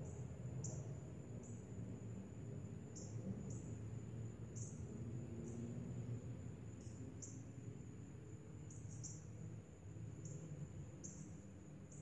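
A steady, high-pitched insect trill that runs throughout with small irregular breaks, over a low outdoor rumble.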